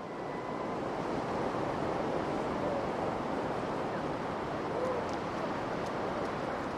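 Ocean surf breaking on the beach: a steady wash of wave noise.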